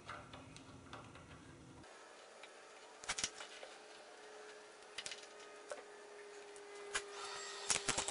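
Ratchet wrench with a 19 mm socket clicking in short runs as a large handlebar riser bolt is run down, ending in a quick string of clicks near the end.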